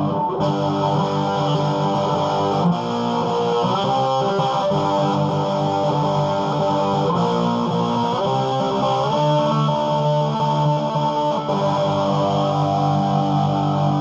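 Electric guitar played through a Marshall Lead 12 solid-state combo amp on its high input with the gain all the way up: sustained overdriven chords, changing a few times.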